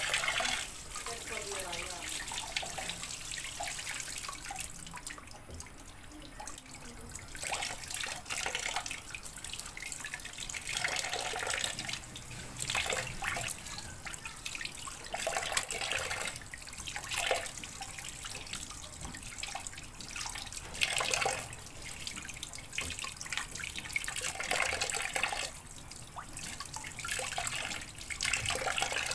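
Water running from a tap into a sink, splashing unevenly and coming and going in swells.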